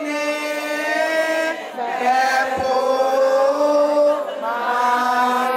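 A woman singing a slow, chant-like song, holding long notes that step up and down in pitch.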